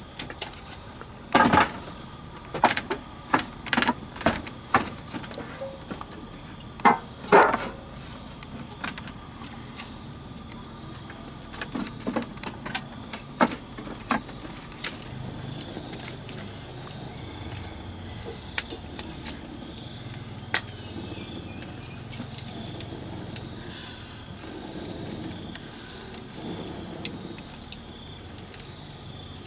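Sharp knocks and clatters of firewood sticks and a large flat metal pan being handled and set up over a small wood fire. The knocks come in a quick run in the first eight seconds and thin out to scattered light clicks afterwards, over a steady thin drone of insects.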